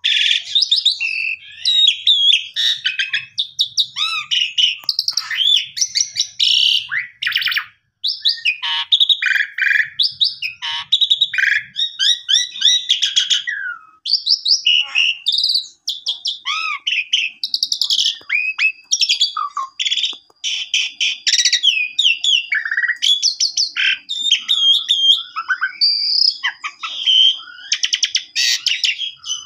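Asian pied starling (jalak suren) in full, non-stop song: a long, varied run of whistles, slurred notes and chattering rattles with only brief pauses. A thin, steady high whistle is held for several seconds in the second half.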